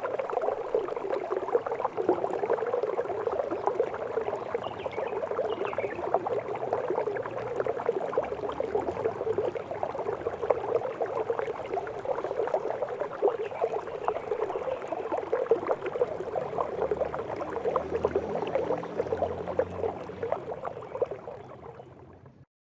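Water trickling and splashing steadily down a miniature decorative waterfall, fading out near the end.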